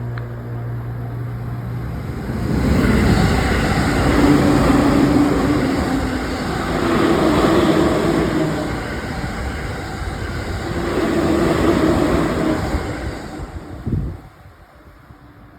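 Shonan-Shinjuku Line electric train passing over a level crossing: a loud rush of wheels on rail starts about two and a half seconds in, swells and eases several times as the cars go by, and dies away sharply about fourteen seconds in. Steady warning tones from the crossing fade out at the start.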